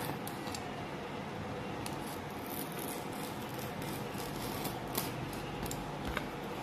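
Snap-off utility knife blade scoring and slicing through a thin wooden sheet, heard as short scratchy cutting strokes and small clicks over a steady background hum.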